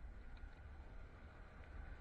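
Faint, steady low rumble of wind and rolling noise on a camera mounted to a fat-tire electric bike in motion.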